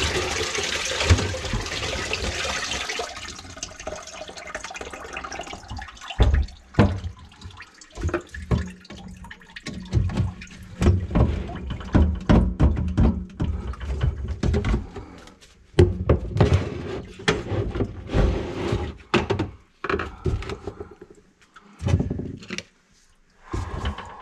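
Water rushing out of the grease-clogged kitchen sink drain pipe into a bucket, a steady pour that fades away over the first few seconds. Then irregular clunks and knocks of plastic drain pipe pieces and tools being handled under the sink.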